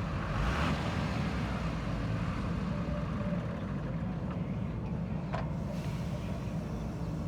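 Heavy diesel machinery engine running steadily, with a brief rush of noise about half a second in and a sharp click a little past five seconds.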